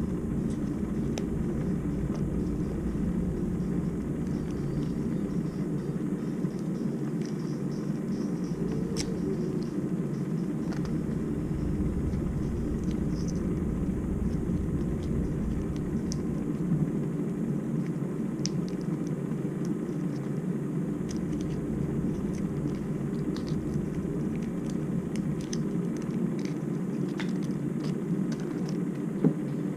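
Steady low rumbling noise with scattered faint clicks, and one brief louder sound near the end.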